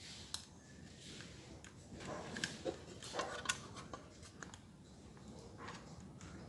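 Handling noises: a run of sharp clicks and light rustling, busiest about two to three and a half seconds in.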